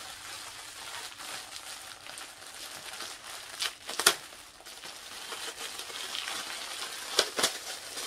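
Packaging crinkling and rustling as small bags are handled and pulled out, with a few sharp clicks or taps, the loudest about four seconds in and two more close together near the end.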